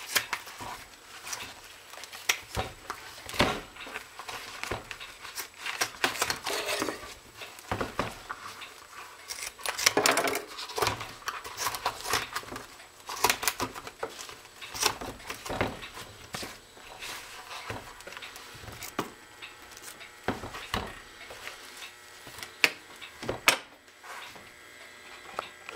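Nike LeBron sneakers being torn apart by hand: irregular ripping of the fabric and mesh upper, rustling, and knocks of the shoes on a countertop, with the longest, loudest rip about ten seconds in.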